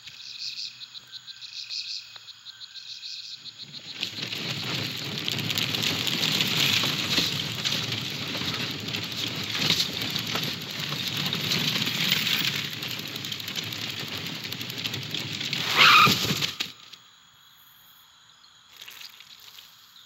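Film sound-effects track without music or dialogue: a regular chirping over a fast high trill, then, about four seconds in, a loud dense wash of crackling and rustling. It peaks in a short, loud whistling sweep and cuts off abruptly, leaving faint hiss with one small blip.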